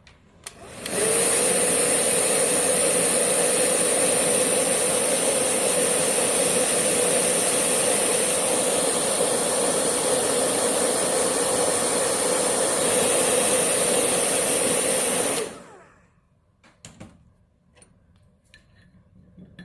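Hair dryer starting about a second in and running steadily with a high whine over a motor hum, blowing the wet colour dry on the painting, then cutting off suddenly near the end; a few faint clicks follow.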